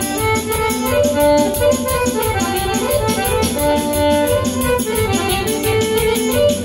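Live band playing Balkan folk dance music with a steady, quick beat and a melody of held notes.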